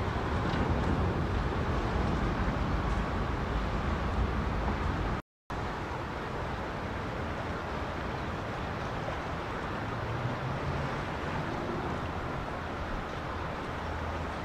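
Steady outdoor rumble and hiss, with no single clear source, broken by a moment of total silence about five seconds in; it is a little quieter afterwards.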